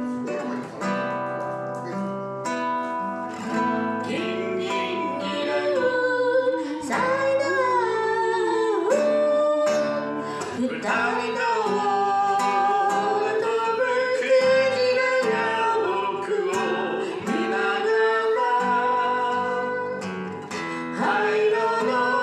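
A man singing while strumming an acoustic guitar, a live solo song with guitar accompaniment.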